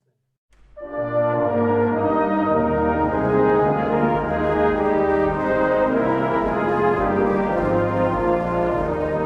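Brass ensemble playing sustained, slow-moving chords. It comes in about half a second in and swells up to full level within a second.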